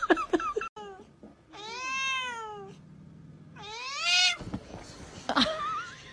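Tabby cat meowing at another cat with two long, drawn-out calls. The first rises and falls in pitch, and the second, about two seconds later, rises.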